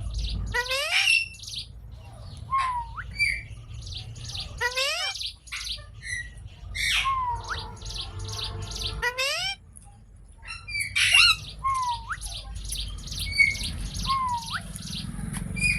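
Pet green Indian ringneck parrot calling: short swooping whistles that dip and rise again, repeated every second or two, mixed with runs of rapid harsh chattering notes. There is a brief lull about ten seconds in.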